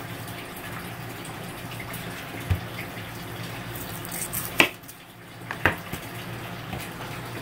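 A steady hiss of water heating in a pot, with a soft thump about two and a half seconds in and two sharp clicks near the middle as a chef's knife trims an onion against the cutting board.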